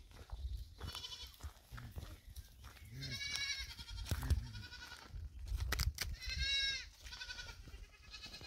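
Goats bleating, about five quavering bleats, the longest and loudest a few seconds in and again past the middle, over a low rumble. A few sharp clicks come just before the second long bleat.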